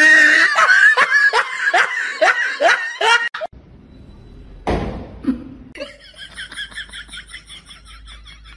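A person laughing hard in a quick run of pitched "ha" bursts, about three a second, that cuts off after about three seconds. Then comes a single knock, followed by a faint, rapid high-pitched pulsing.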